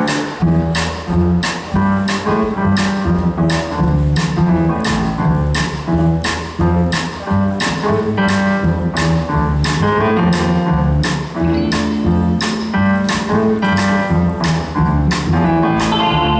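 Live swing band playing an instrumental passage, with drum strokes keeping a steady beat about twice a second under a walking bass line and piano.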